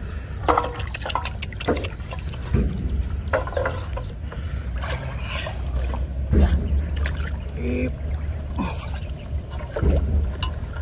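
Muddy water sloshing and splashing in irregular bursts as a man wades and dips plastic bottles into it.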